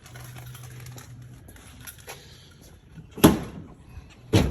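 Two heavy thumps about a second apart, each with a brief ring after it, the second near the end.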